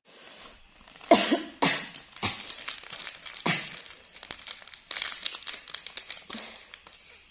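A person coughing in a series of short, harsh coughs, the loudest three coming about half a second apart near the start, one more a little later, then a few softer ones.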